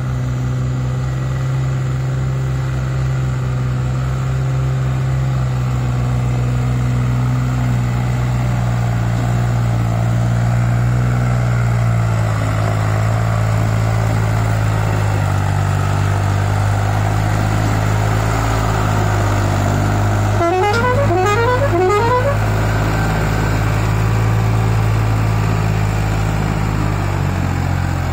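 New Holland 3600 tractor's diesel engine running steadily as it hauls two trailers loaded with sugar cane. About two-thirds of the way through, a horn sounds a quick run of about four rising whoops.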